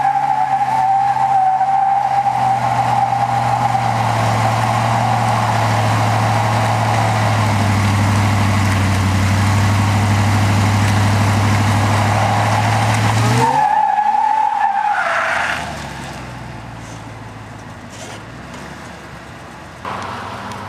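Ford Lightning pickup's V8 doing a burnout: the engine is held at steady high revs while the rear tyres squeal with a steady tone. About 13 seconds in the revs drop, and the squeal fades out by about 15 seconds, leaving the engine idling. A short louder noise comes near the end.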